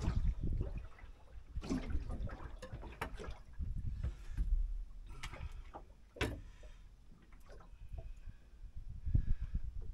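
Water lapping against the hull of a small anchored boat, under scattered knocks and clatter on deck.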